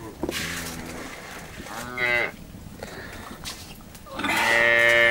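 Cattle mooing: a low call near the start, a short call about two seconds in, and a longer, louder call near the end.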